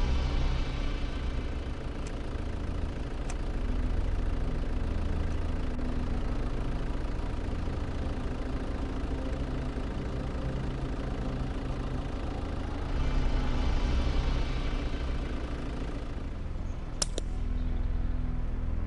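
A vehicle engine idling steadily, with one sharp crack near the end, typical of a moderated .22 rimfire rifle firing a subsonic round.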